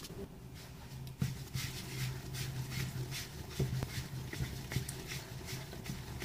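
Hands rolling balls of pizza dough on a countertop: soft, rhythmic rubbing taps, about two or three a second, over a steady low hum.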